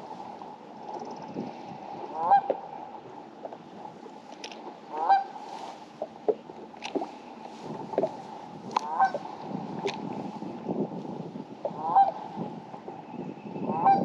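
A bird honking, a short call repeated about every three seconds, with a few sharp clicks over a steady background hiss.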